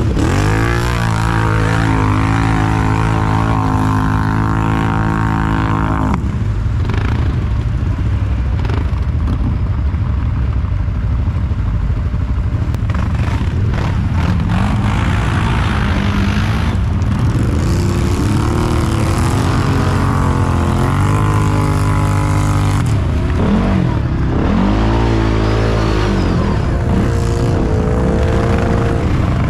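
ATV (quad bike) engines running and revving while pulling through deep mud. The pitch is held high for the first several seconds, then drops, and later rises and falls again and again as the throttle is worked.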